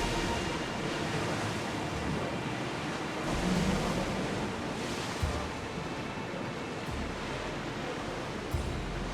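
Sea waves: a continuous rush of moving water that swells and eases, with a low rumble coming and going in the second half.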